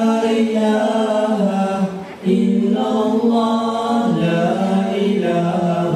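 Male a cappella nasheed group singing in long held notes, with a brief pause about two seconds in.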